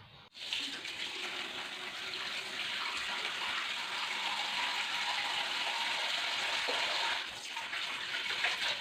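Water running from a tap into a sink for handwashing. It starts suddenly just after the start and runs steadily, with a brief dip about seven seconds in.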